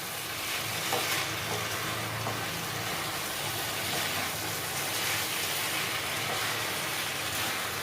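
Chicken in Schezwan sauce sizzling steadily in a frying pan while it is stirred, with a few faint scrapes of the spoon against the pan.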